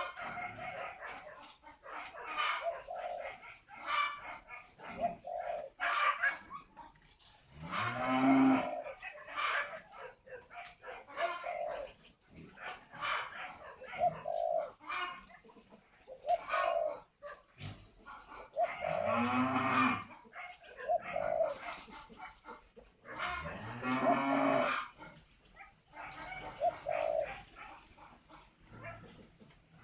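Spotted doves cooing, short low coos repeated every second or two. They are mixed with three louder, deeper drawn-out animal calls, each about a second long, at about 8, 19 and 24 seconds in.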